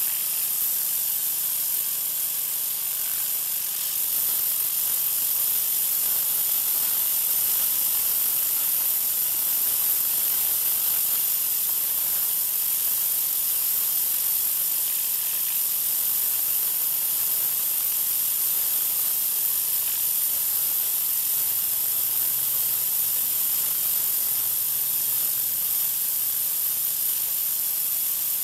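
High-pressure water jet from a Troy-Bilt 2200 psi pressure washer with an oscillating tip spraying a concrete sidewalk: a steady, unbroken hiss of spray.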